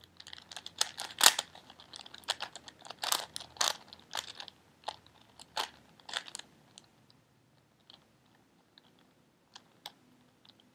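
Plastic 4x4x4 Rubik's cube being turned by hand: its layers click and clack in quick clusters for about six seconds, then only a few faint clicks.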